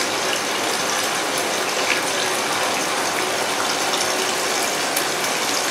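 Steady sizzling hiss of green capsicum pieces frying in oil in a covered non-stick pan on a medium gas flame.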